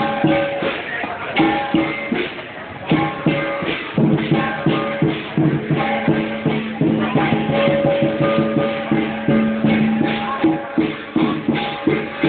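Lion dance percussion: a drum beaten in fast, driving strikes with clashing cymbals and a ringing gong, played live to accompany the dancing lion.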